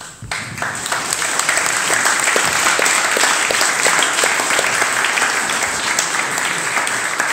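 Audience applauding: many people clapping together. It starts abruptly just after the opening and holds steady, easing slightly near the end.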